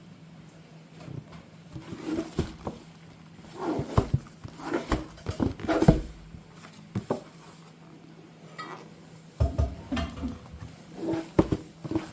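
Hands handling panettone packaging: irregular taps, knocks and rustles of box and wrapping. The taps come in clusters, loudest around four to six seconds in and again near the end.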